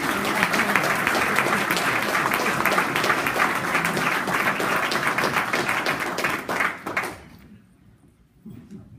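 Audience applauding, then dying away about seven seconds in.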